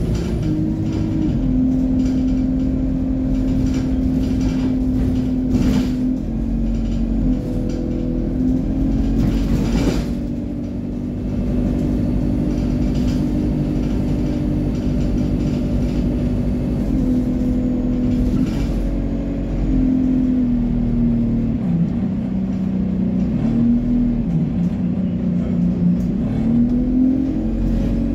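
Single-deck bus under way, heard from inside the saloon: a steady engine drone and road rumble, the engine note stepping up and down in pitch as the bus speeds up and slows, with occasional knocks and rattles from the body.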